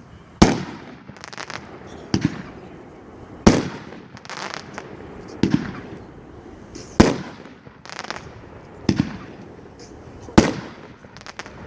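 A 500 gram consumer firework cake, One Bad Mother-in-Law, firing: sharp loud reports every second or two, with the strongest bangs about every three and a half seconds, smaller clusters of crackling pops between them, and each report trailing off in echo.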